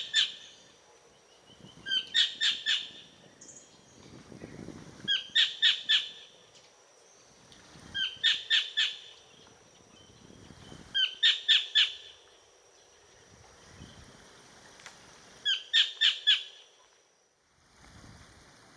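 Collared kingfisher giving its loud, harsh call: series of three to five sharp notes, repeated about every three seconds.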